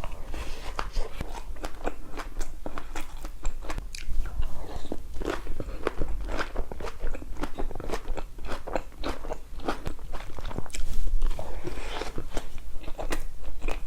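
Close-miked eating sounds: a person chewing and biting food, with a dense run of quick, sharp mouth clicks and smacks.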